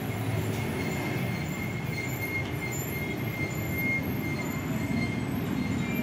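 Steady city road-traffic noise, a low rumble of passing vehicles with a thin high whine held throughout.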